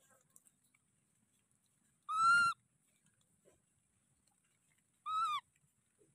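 Baby macaque giving two short, high-pitched coo calls about three seconds apart, each holding its pitch and then dropping at the end.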